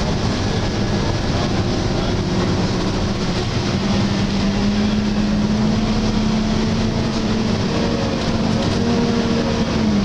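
Volvo B7LA / Wright StreetCar articulated bus heard from inside the passenger saloon while driving: steady diesel engine and road rumble, with a hum that rises slowly in pitch over several seconds and drops sharply near the end.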